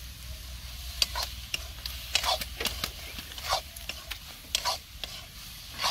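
Metal spatula scraping and clinking against a wok, stirring sliced tomatoes into frying onions, garlic and chilli, with a faint sizzle. The strokes come irregularly, about ten of them.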